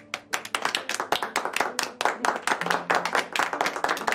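A small group of people applauding, with many quick, uneven claps.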